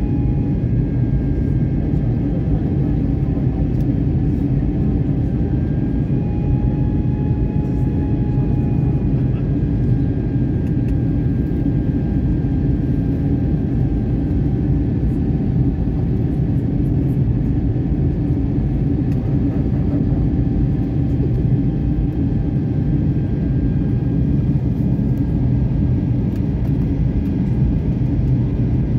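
Jet airliner cabin noise heard from a window seat: a steady, deep engine and airflow drone with a faint high engine whine that drifts slowly down in pitch.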